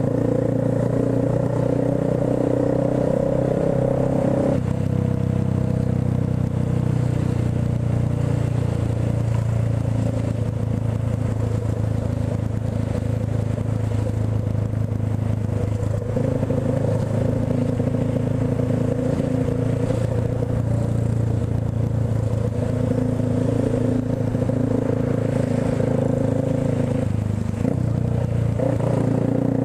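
Motorcycle engine running at low speed in slow traffic, its note steady apart from a few changes in pitch as the throttle opens and closes.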